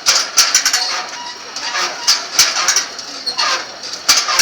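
Tinguely's Heureka, a large scrap-metal kinetic sculpture, running: metal parts squeaking and scraping against each other, with irregular knocks and clanks.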